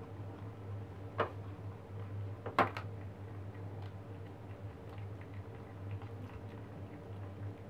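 Kittens chewing and licking at a dead newborn rabbit: faint, irregular small clicks and ticks. There is a sharper click about a second in and a close pair of louder clicks a little later, over a steady low hum.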